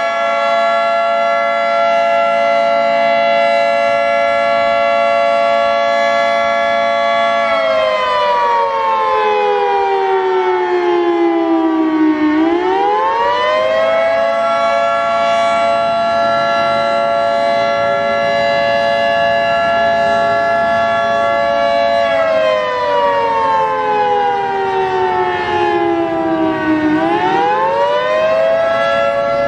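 Federal Signal 3T22 three-tone outdoor warning siren sounding its attack signal. The pitch holds steady, then slides down over about five seconds and sweeps back up in a second or two, and the cycle comes round twice.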